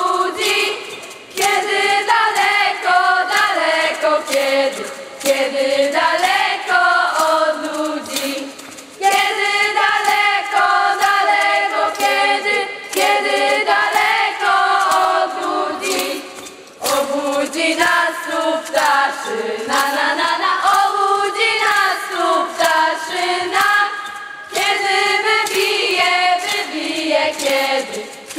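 A group of voices singing together: a Polish scouting song.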